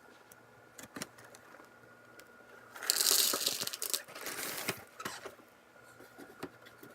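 Dry cereal and its packaging being handled: scattered clicks and taps, then about two seconds of loud rattling and crinkling from about three seconds in.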